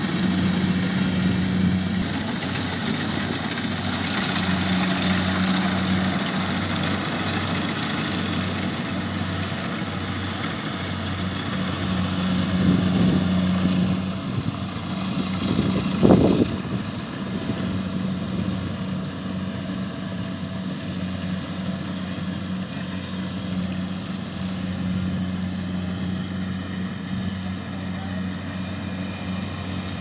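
Kubota DC70Plus rice combine harvester's diesel engine running steadily under harvesting load, a continuous low hum, with one brief louder sound about halfway through.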